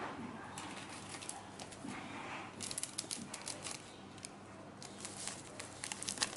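Plastic seasoning sachet crinkling and crackling in quick, irregular clicks as it is handled and squeezed to pour seasoning powder out.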